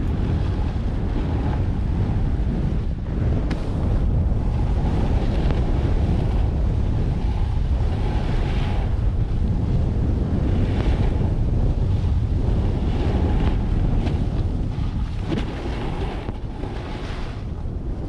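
Wind buffeting the microphone in a steady low rumble, with softer hissing swells every few seconds.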